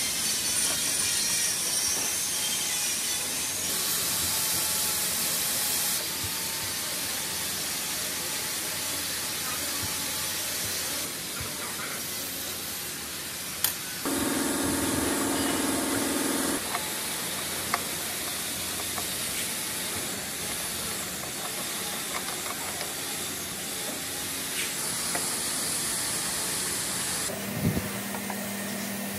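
Steady hiss of background noise that changes in tone at several cuts, with a brief low hum partway through and a few isolated sharp clicks.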